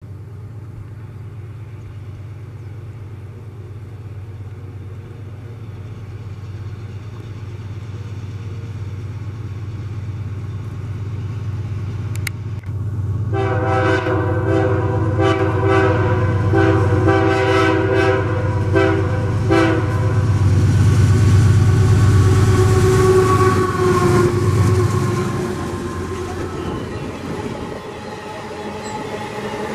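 Pair of GE AC44i diesel-electric locomotives hauling an empty iron-ore train approach with a rumble that grows steadily louder, and sound a multi-note air horn in several blasts for about six seconds midway. The locomotives pass close by, their rumble dropping in pitch, and the empty ore hopper wagons roll past rattling on the rails.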